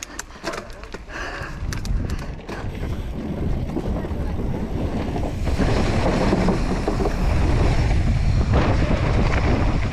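Wind rushing over a helmet-mounted camera's microphone, mixed with mountain-bike tyres rolling over wooden boards and then dirt, building up as the bike gathers speed. It starts with a few sharp clicks and grows louder about halfway through.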